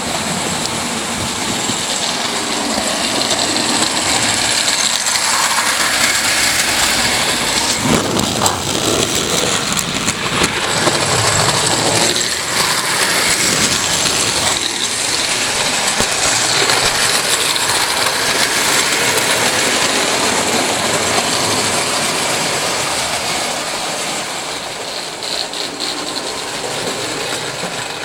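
Marx Commodore Vanderbilt tin-plate toy train running on its track, a steady mechanical rattle that eases slightly near the end.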